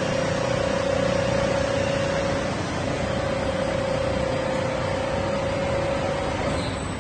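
Mattress tape-edge sewing machine with a heavy-duty 300U head running, a steady whine over machine noise that breaks off briefly about two and a half seconds in, then stops near the end.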